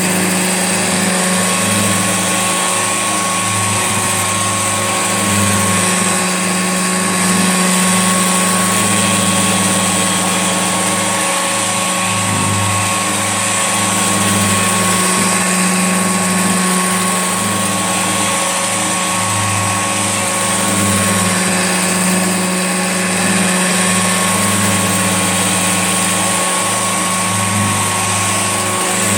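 Old Hoover Junior upright vacuum cleaner running steadily: a low motor hum with a thin high whine and airy hiss over it.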